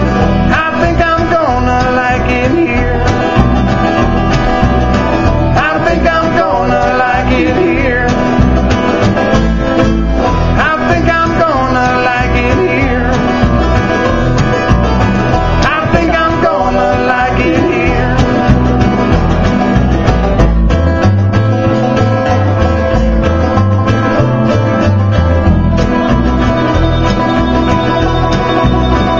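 Live bluegrass band playing, with a five-string banjo picking and an acoustic guitar strumming.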